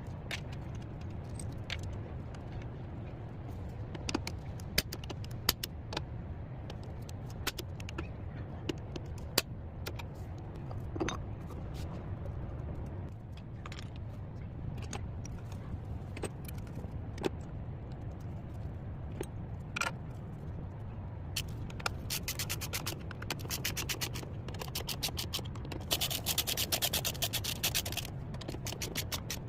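Metal hand tools clinking, knocking and scraping on car parts during an engine mount replacement, over a steady low hum. From about two-thirds of the way in comes a fast, even run of clicks, densest near the end.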